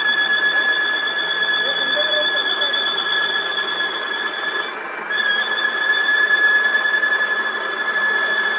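Steady high-pitched whine from a truck-mounted hydraulic bucket lift, typical of its hydraulic pump running. The whine breaks off briefly about five seconds in and then resumes, with faint voices underneath.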